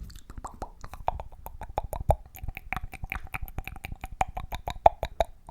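ASMR mouth sounds: a fast, uneven run of wet tongue clicks and mouth pops close to the microphone, about five or six a second, starting abruptly.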